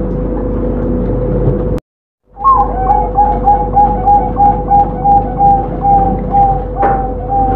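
Zebra dove (perkutut) cooing in its cage: after a brief dropout about two seconds in, it delivers a rapid run of short, clear coo notes, about three a second. A steady hum runs underneath, and there is a single click near the end.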